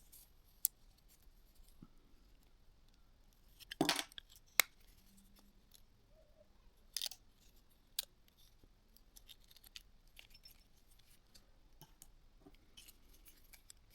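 Scattered small clicks and light taps of phone parts and small tools being handled during reassembly of a Nokia N95. The loudest clicks come about four and seven seconds in.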